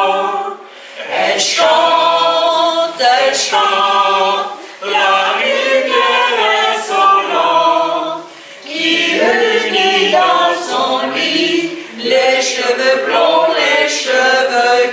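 Amateur choir of older men and women singing a French song together, unaccompanied, in phrases broken by short breaths about every three to four seconds.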